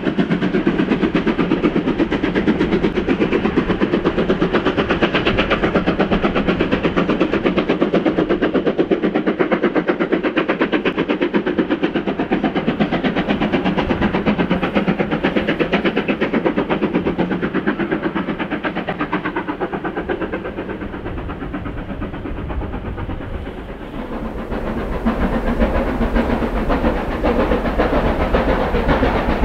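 Steam locomotives working hard up a steep gradient: a fast, even run of exhaust beats with the rumble of the train. After a short lull about three-quarters of the way through, another steam engine is heard from further off, hissing as it climbs.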